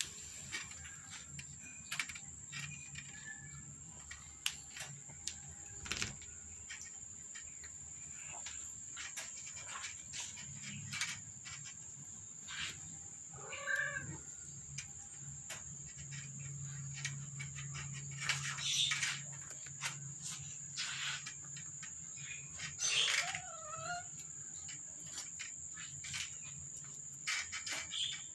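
Several cats eating from a foil tray: frequent small clicks and smacks of chewing and feeding. A cat meows twice, about halfway through and again some ten seconds later.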